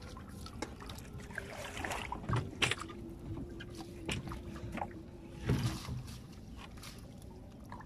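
Water splashing and dripping as a mesh trap net is lifted and handled over the side of a wooden boat, with a few short knocks. A faint steady hum runs through the middle.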